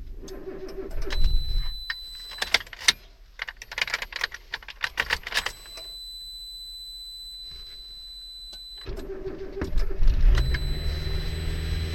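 Suzuki Wagon R+ being cranked on its starter in a no-start attempt, with sharp clicks and key jangling between tries. The starter hum stops for about three seconds, then cranking resumes about nine seconds in and settles into a steady hum.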